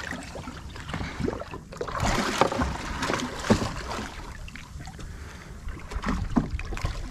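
Water lapping and splashing against a small boat's hull, with a steady low rumble of wind on the microphone and a few irregular knocks about two to three and a half seconds in.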